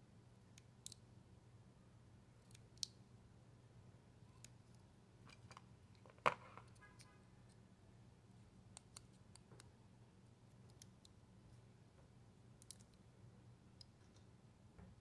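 Small scissors snipping the end of a plastic drinking straw: a few sharp, separate snips in a quiet room, the loudest about six seconds in. Fainter ticks follow as the straw is pinched and its cut ends are bent outward.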